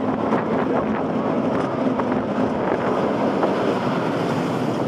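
Steady rush of wind over a head-worn camera microphone, mixed with the rumble of a roller coaster train running along its steel track.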